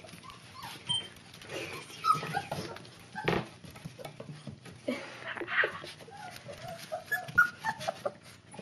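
Young puppies whimpering and yipping in many short, high squeaks, with scuffling in wood-shaving bedding and one sharp knock about a third of the way in.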